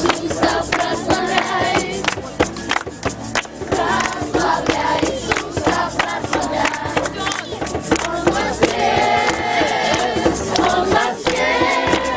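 A group of voices singing a Christian worship song together, over sharp rhythmic beats.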